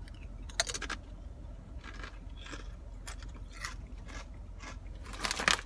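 Close-miked eating sounds: biting and chewing a wrapped beef and cheese snack, with crinkling of its wrapper, in a string of short crisp bursts, the loudest near the end.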